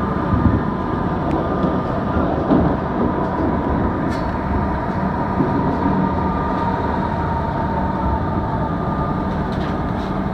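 Melbourne Metro suburban electric train running at speed, heard from inside the carriage as another Metro train runs alongside: a steady rumble of wheels on rails with a steady whine.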